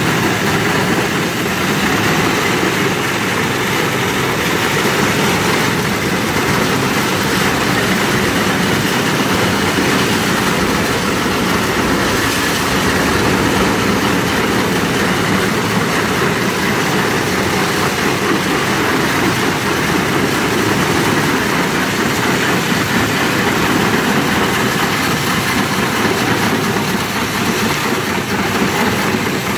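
Conjet Robot 327 hydrodemolition robot blasting concrete with its 1050-bar, 100 L/min ultra-high-pressure water jet: a loud, steady, unbroken noise.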